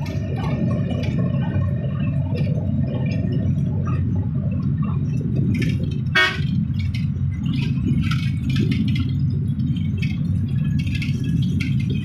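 Vehicle driving at speed: a steady low rumble of engine and road noise with scattered light rattles, and one short horn honk a little past six seconds in.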